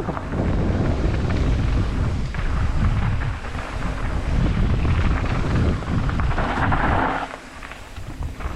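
Wind buffeting the microphone over a steady low rumble of a mountain bike rolling down a rough dirt trail. The noise eases for about a second near the end.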